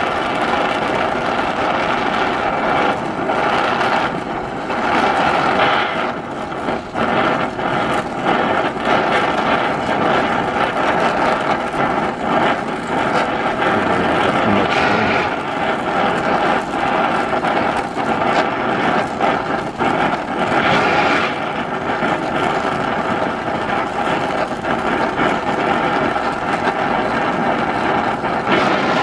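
Gas brazing torch burning with a steady hissing rush while bronze rod is melted onto a cast iron piston to build it up oversize. The level dips slightly now and then, and steady tones run underneath.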